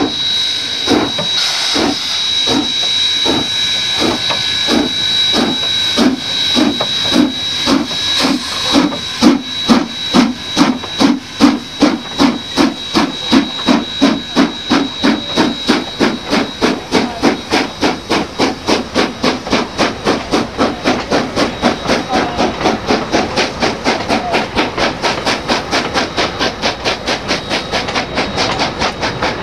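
Steam locomotive JA 1271 working hard as it gets a train moving, its exhaust beats starting at about one a second and quickening steadily into a rapid, even beat, over a steady steam hiss. A thin high steady tone sounds over the first third.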